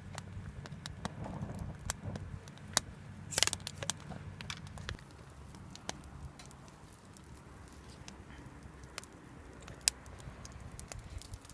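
Wood fire in a campfire stand crackling, with sharp irregular pops and a louder cluster of cracks about three and a half seconds in, over a low rumble that fades out about halfway through.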